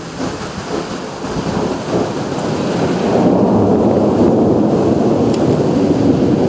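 Thunder from a nearby lightning strike: a rumble that grows over the first three seconds or so and then holds loud and steady.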